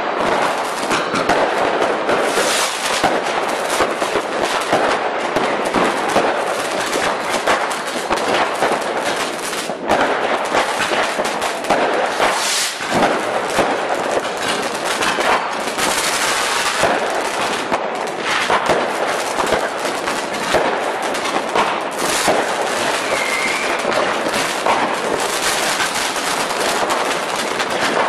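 Fireworks going off in a dense, unbroken barrage of rapid cracks and pops.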